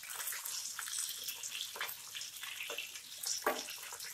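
Oil sizzling and crackling around gram-flour-coated kingfish steaks shallow-frying in a pan, with a few sharper clicks as a spatula shifts the pieces.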